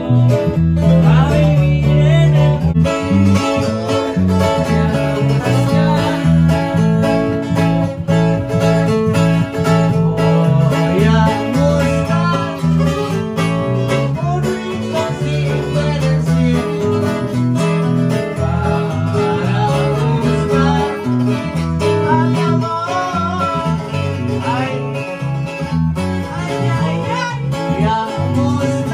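Music: a song led by plucked and strummed acoustic guitars, with a voice singing at times.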